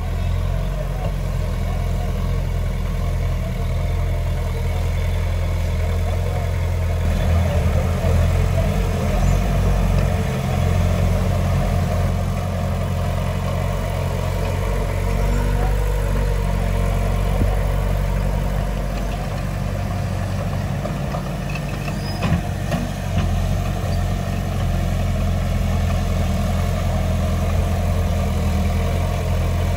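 Heavy diesel engine of earthmoving machinery running steadily, swelling louder for a couple of seconds about a third of the way in, with a few short knocks a little past the middle.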